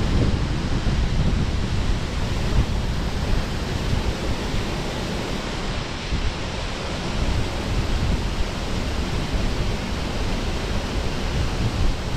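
Water pouring through a spillway gate and churning into the channel below, a steady rushing noise, with wind buffeting the microphone.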